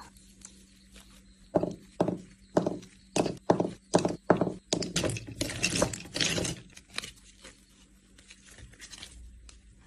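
Cured epoxy-resin beads being pressed out of a silicone mold and knocking onto the tabletop: a string of sharp taps and knocks, about two a second, with some rubbery scuffing of the mold, then only faint handling sounds near the end.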